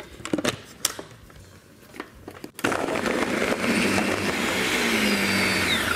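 A few clicks as the lid is fitted on a countertop blender. About two and a half seconds in, the blender starts and runs loud and steady, crushing frozen pineapple chunks with ice cream and juice, and its pitch falls near the end.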